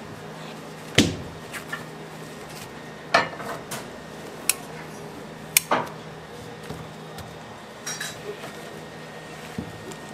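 About half a dozen sharp knocks and clinks, spread across a few seconds, as metal scissors and slabs of cooling hard candy are handled and set down on the candy-making table.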